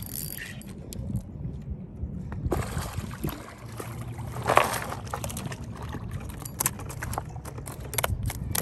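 Water splashing and sloshing as a hooked shad is reeled in to the bank, with the strongest splash about four and a half seconds in. Near the end comes a run of sharp clicks and crunches on the gravel bank.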